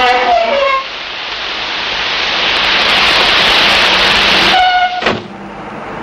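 A loud steady hiss that swells over a few seconds and breaks off abruptly about five seconds in. A short falling whistle-like tone sounds at the very start, and a brief horn-like tone sounds just before the hiss cuts off.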